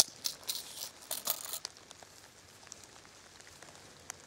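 Muela Kodiak knife being drawn out of its leather sheath: faint leather rustling and scraping with small clicks in the first second and a half, then only a few light ticks of handling.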